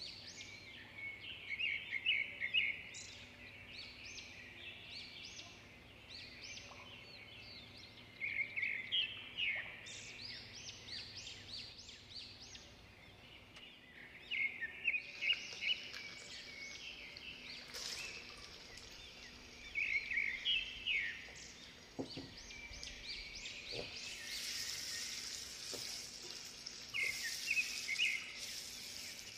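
A songbird singing short chirping phrases every several seconds over onions frying in oil in a cooking pot. About 22 seconds in come a couple of dull knocks, then the frying sizzle grows louder once chopped tomatoes are in the pot.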